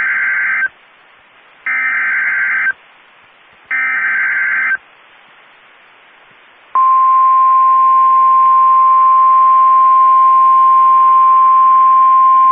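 NOAA Weather Radio Emergency Alert System (SAME) header: three one-second bursts of buzzy digital data screech, about a second apart, announcing a new severe thunderstorm warning. About seven seconds in, the steady single-pitch warning alarm tone starts and holds.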